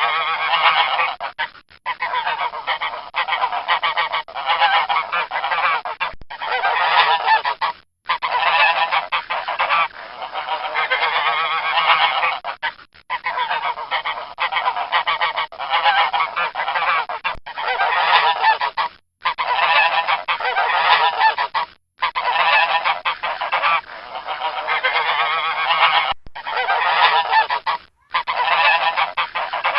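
Domestic geese honking: dense, overlapping calls, broken by short pauses every few seconds.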